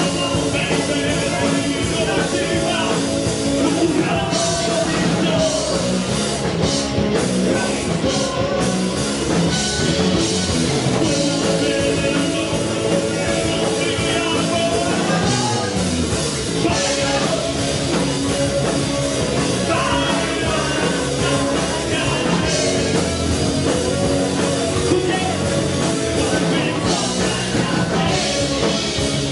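Live rock band playing loudly, with electric guitars, bass guitar and drums under several voices singing together.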